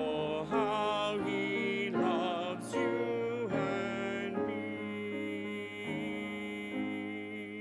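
A man and a woman singing the last phrase of a hymn with piano accompaniment, ending on a long held final note and chord that begins to fade near the end.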